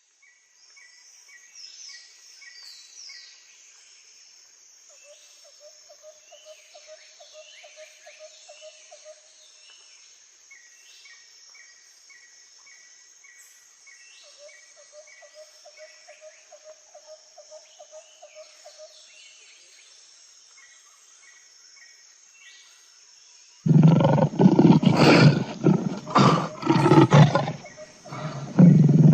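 Faint birds calling with repeated short chirps, trills and downward whistles, then, about 24 seconds in, a sudden loud, deep roaring of a big cat that comes in several surges.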